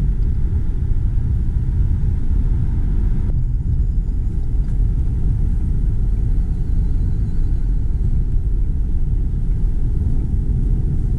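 Steady low rumble of a car driving at freeway speed, heard inside the cabin. The fainter hiss above it drops away suddenly about three seconds in.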